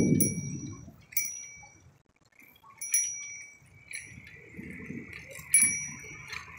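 Bicycle bell dinging about five times in short single rings at irregular intervals, over low rumbling wind and road noise on the microphone.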